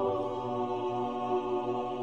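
Background music: a held chord of steady sustained tones, easing slightly in level.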